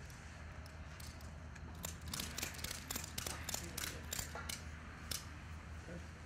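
Tent strap ratchet being cranked to tension a pole tent's corner pull: a quick, uneven run of clicks starting about two seconds in and stopping about five seconds in.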